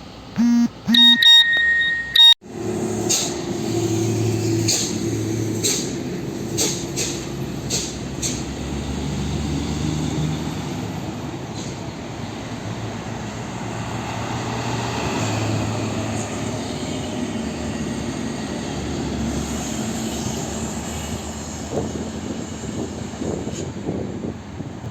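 Heavy diesel trucks driving past on a road, with steady engine hum and tyre noise. A few short beeps sound in the first two seconds, before an abrupt cut.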